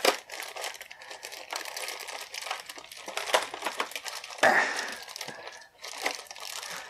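Clear plastic packaging, a bag and blister tray, crinkling and crackling irregularly as hands pull and twist at it to free a taped-down piece. There is a louder burst of crinkling about four and a half seconds in.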